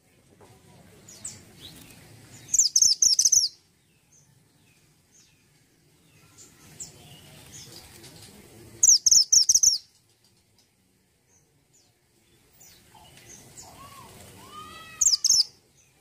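A caged minivet (mantenan gunung) calling in three bouts about six seconds apart. Each bout builds from soft chatter into a loud burst of rapid, very high-pitched notes, and the last is led in by a few lower, arching notes.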